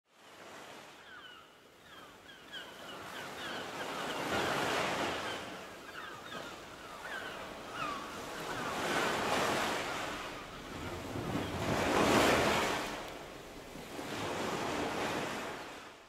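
Ocean surf: waves breaking and washing in, in slow swells that rise and fall every few seconds, the loudest about twelve seconds in. Short high chirps repeat through the first half.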